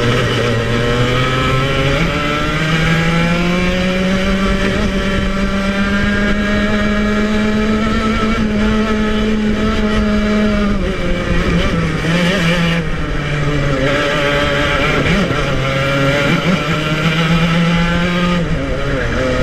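Club100 TKM 115cc two-stroke kart engine running hard on track: its pitch climbs over the first few seconds and holds high, drops and wavers about eleven seconds in as the kart slows through a corner, then climbs again and falls once more near the end.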